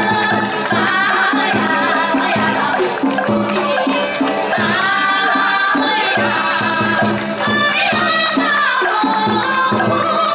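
Live traditional Vietnamese folk music: several melodic instruments with sliding, bending notes over steady drum and rattle strokes.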